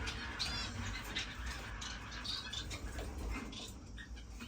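Small caged finches chirping on and off in a bird room, short high calls over a steady low hum.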